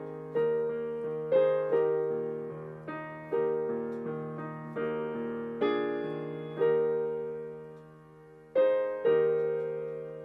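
Digital piano playing a slow hymn in full chords over a held low bass note, each chord struck and left to ring down. After a brief lull, a last chord is struck near the end and held.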